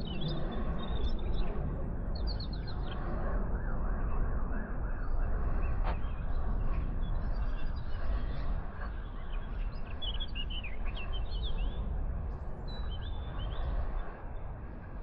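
Small birds chirping and singing in short, high, scattered calls over a steady low rumble.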